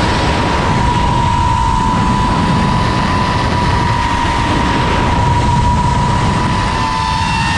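FPV quadcopter's brushless motors and propellers whining at a steady throttle, one held pitch, over a heavy low rumble of wind on the drone-mounted camera's microphone.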